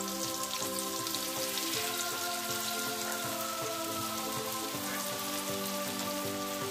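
Zucchini-flower batter fritters frying in shallow hot oil in a pan: a steady crackling sizzle. Soft background music of held chords plays along, changing chord twice.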